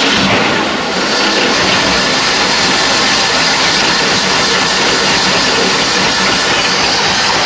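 Starboard inboard engine of a cruiser running steadily just after starting, heard up close inside the engine compartment as a loud, even rush of engine and exhaust noise.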